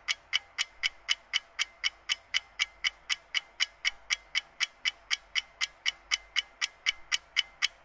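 A ticking-clock sound effect: even, sharp ticks at about four a second, with the outdoor field sound removed.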